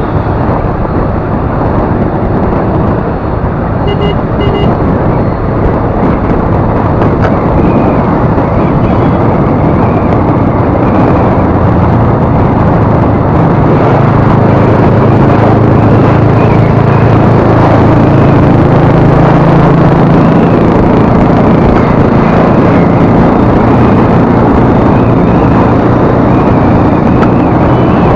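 Riding noise on a TVS Jupiter scooter: a steady rush of wind and road noise, with a low hum that grows louder about halfway through.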